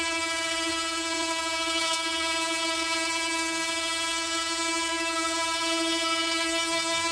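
Parkside PAMFW 20 Li B2 cordless oscillating multi-tool running with its delta sanding pad and P60 sandpaper against painted wood, stripping the paint: a steady, even buzz at one pitch.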